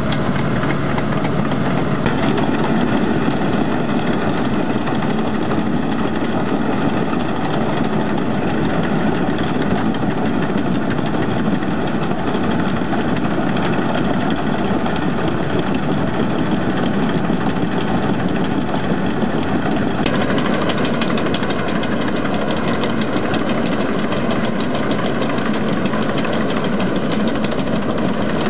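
Amphibious excavator's diesel engine running steadily under working load, with a fast, even clatter.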